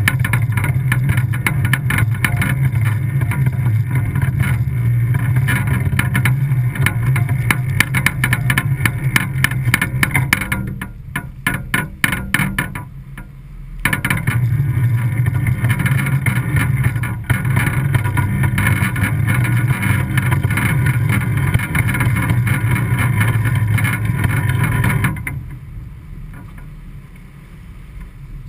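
A Whitby 42's inboard diesel engine running steadily under wind buffeting on the microphone. It dips for a few seconds about eleven seconds in, then falls away suddenly a few seconds before the end, leaving quieter wind and water rushing past the hull.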